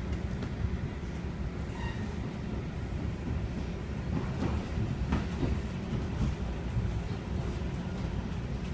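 Steady low rumble of a commuter train coach running along the track, heard from inside the coach. A few sharp clicks from the wheels over the rails come near the middle.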